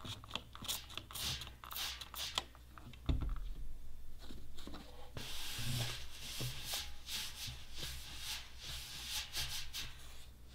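Spray bottle squirting cleaner onto a sanded metal tank in several short sprays, a dull thump about three seconds in, then a paper towel rubbing and wiping over the roughed metal surface.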